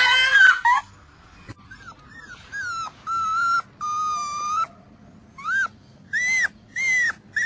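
German shepherd whining in a series of short, high-pitched calls: the first few held level, the later ones rising and falling in arches.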